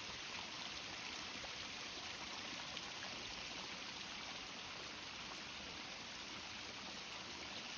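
Running water: a steady, even hiss that does not change.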